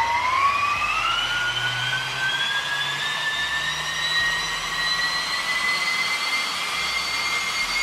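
Electric ducted fan with two counter-rotating propellers on two DYS 3530 1700KV brushless motors, run on a 4S battery: a loud rush of air with a high whine. The whine climbs quickly in the first second or so, then creeps up slowly and holds at high speed. It is run to about half throttle, drawing around 73 amps.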